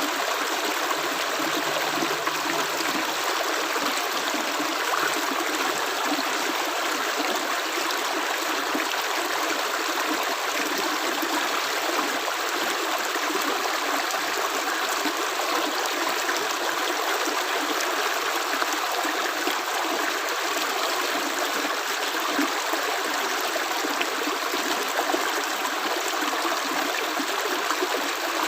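Running water, a steady even rush like a stream, with no pause or change.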